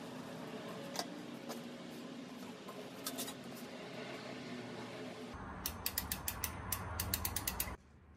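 Bicycle being worked on by hand: a few light knocks while the front wheel is handled. About five seconds in comes a rapid run of ratchet-like clicks for about two seconds, which cuts off suddenly near the end.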